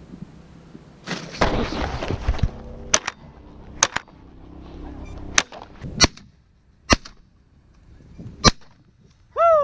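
Franchi Affinity 12-gauge semi-automatic shotgun fired repeatedly at snow geese overhead: six sharp reports spread over about five and a half seconds, the later ones louder. The shots are preceded by a loud rush of noise about a second in.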